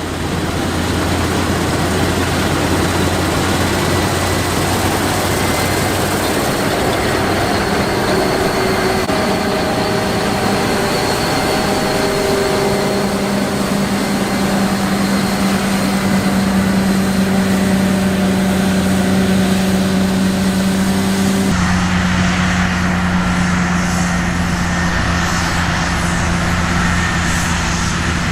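Combine harvester running steadily: engine and threshing machinery with a constant hum and a faint whine. The sound shifts abruptly about three-quarters of the way through, then carries on just as loud.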